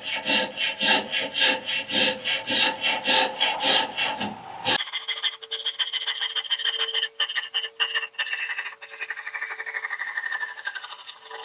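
A hand file or rasp scraping on deer antler in even strokes, about three a second, shaping an arrow point. About four to five seconds in, the sound changes abruptly to faster, finer, higher-pitched scraping with a faint steady tone underneath.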